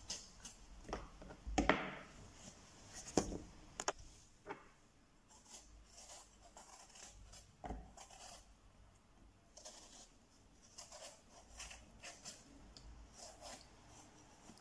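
Kitchen knife peeling the skin off an eggplant held in the hand: faint, scattered scrapes and clicks.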